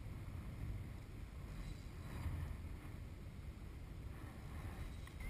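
Wind buffeting the camera microphone: a steady low rumble with a faint hiss above it.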